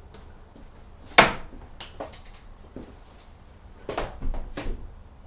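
Darts thudding into a dartboard as a player throws his turn. There is a loud sharp knock about a second in, a couple of lighter ones just after, and three more in quick succession near the end.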